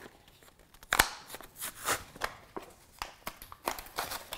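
Rustling and clicking from a paper-and-plastic package of Stitch Witchery fusible tape being handled and unwrapped, with a louder sharp rustle about a second in.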